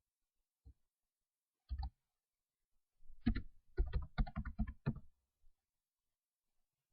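Computer keyboard keystrokes: a single tap, a brief pair of strokes, then a quick run of about ten keystrokes between about three and five seconds in.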